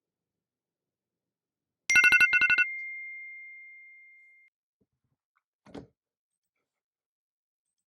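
Electronic timer alarm: two quick runs of sharp beeps, then a single ringing tone that fades away over about two seconds, signalling the end of the break. A faint short knock follows.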